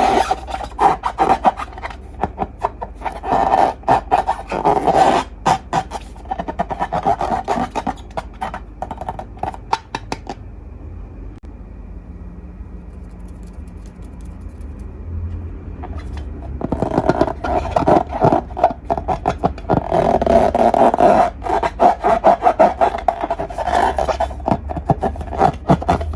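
Glossy slime being squished, stretched and poked by hand, giving a dense run of small sticky clicks and crackles with rubbing. It eases off about ten seconds in and picks up again around sixteen seconds.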